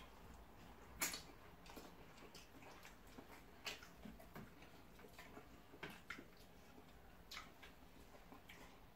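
Quiet eating sounds: scattered soft mouth clicks and smacks from chewing rice and stew eaten by hand, the sharpest about a second in.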